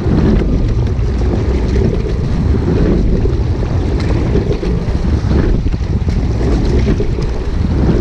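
Steady wind rumble on the microphone of a camera on a moving rowing shell, over the rush of water along the hull.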